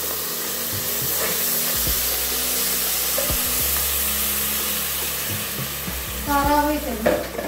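Wet duck pieces sizzling in a hot pressure cooker pan, giving a steady hiss while a spoon stirs them, with a few light knocks of the spoon on the pot.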